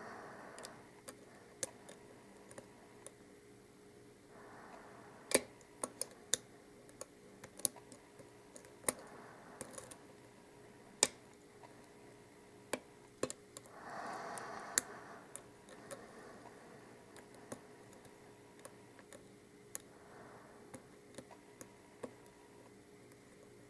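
Lock pick and tension wrench working the pin stack of an Abus Titalium euro cylinder during single pin picking: faint, irregular metal clicks and ticks as pins are lifted and set. Soft rustling from handling comes twice.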